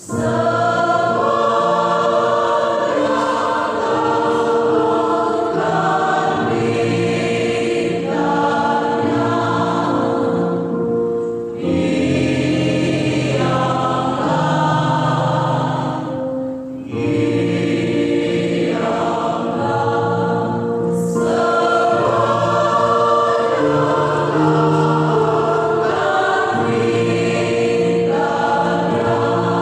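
A church choir singing a hymn in sustained chords, entering together at the start, with short breaks between phrases about 11 and 17 seconds in.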